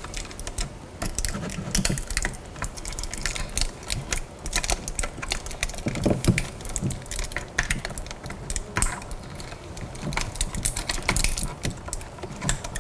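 A plastic pry tool clicking and scraping against a lithium hybrid battery blade's plastic housing and wiring as the balance-board cables are prised loose: a run of small, irregular clicks and taps.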